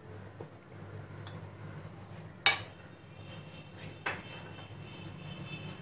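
A few clinks of a metal fork against a ceramic plate. The loudest comes about two and a half seconds in, with a brief ring after it, and another about four seconds in, over a low steady hum.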